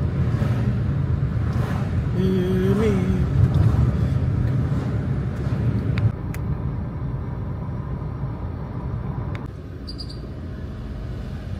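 Steady road and engine rumble heard from inside a moving car, with traffic passing. A short pitched tone sounds a couple of seconds in, and the rumble drops a little about halfway through and again near the end.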